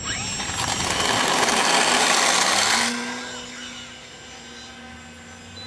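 Ultrafly Outrage 3D model biplane's motor and propeller run up to full power for the takeoff, loud for about two and a half seconds, then fall away sharply as the plane climbs off, leaving a steady distant drone.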